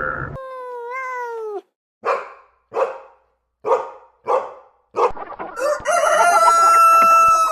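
A short falling call, four short separate squawks, then a rooster crowing, its long final note held steady.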